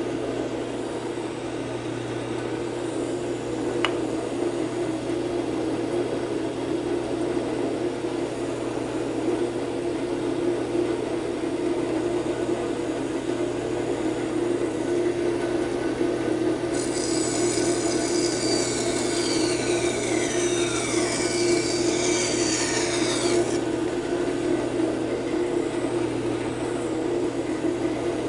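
Band saw running with a narrow 3/16-inch blade, cutting through a block of spalted wood: a steady motor hum under the rasp of the blade in the wood. Past the middle, a brighter, higher scraping with squeals falling in pitch lasts about six seconds.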